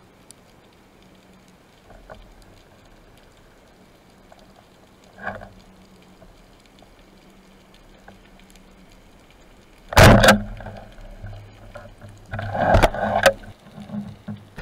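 Muffled underwater hiss heard through a speargun-mounted camera, then a speargun shot: one sharp, loud thump about ten seconds in. Loud knocks and rubbing follow near the end as the speared fish is handled against the gun.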